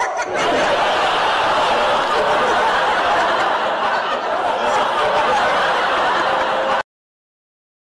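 Loud crowd noise: many voices laughing and shouting at once. It cuts off suddenly near the end.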